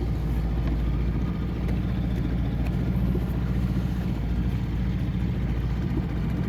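An engine running steadily at idle or low revs, a continuous low rumble.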